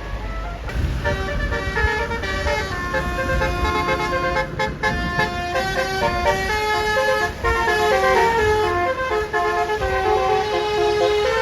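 Bus's Basuri telolet horn playing a stepped multi-note tune, several horn notes sounding together, over the low rumble of the bus engine close by.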